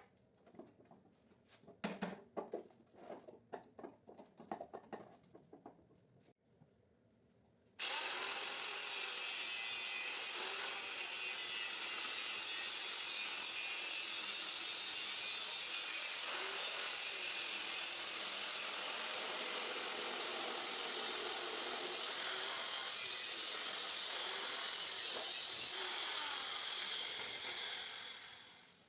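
Scattered knocks and clatter of handling, then about eight seconds in a power tool starts suddenly and cuts steadily into a scroll compressor's casing. It fades away near the end.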